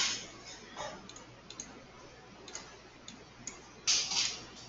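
Computer mouse clicking: scattered light, sharp clicks, with louder short bursts at the start and about four seconds in.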